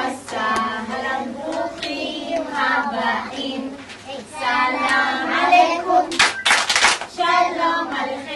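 A group of young children singing a song together, with a run of quick hand claps about six seconds in.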